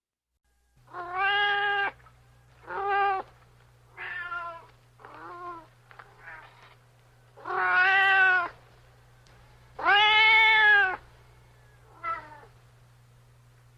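Domestic cat meowing repeatedly, starting about a second in: about eight meows of varying length, the two longest and loudest near the middle, over a faint steady low hum.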